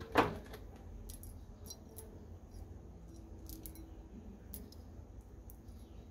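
Small TO-220 power MOSFETs clinking lightly as they are picked up off a cutting mat and handled in the palm: a scatter of short, sharp clicks. A louder knock comes just after the start.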